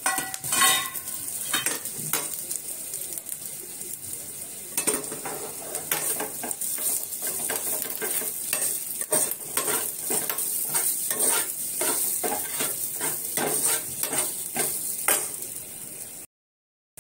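Steel spatula stirring and scraping sliced onion, dry grated coconut and ginger-garlic paste as they fry in a little oil in a pan, with a steady sizzle under rapid repeated scrapes and clicks of the spatula on the pan. The sound cuts off abruptly to silence just before the end.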